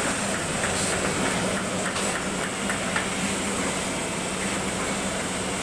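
Two-colour Super Solna-type offset printing press running: a steady mechanical hum and clatter with scattered light clicks.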